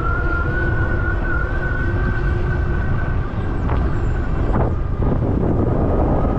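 Electric bike's hub motor whining with a steady, slightly wavering pitch that fades out about three seconds in. Heavy wind buffeting on the microphone and tyre rumble on gravel run under it, with a couple of small knocks from the track.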